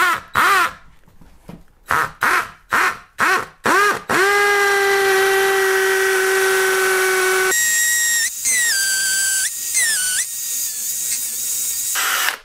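DeWalt cordless combi drill in hammer mode drilling into a masonry wall with an 8 mm masonry bit. First a run of short trigger pulls, each spinning the motor up and letting it wind down, then about three seconds of steady drilling, then higher-pitched drilling whose pitch shifts several times before it stops just before the end.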